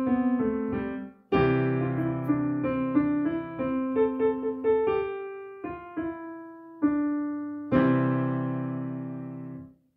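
Piano playing: phrases of melody over chords, with a brief pause about a second in, ending on a final chord near the end that is held and left to fade until it stops.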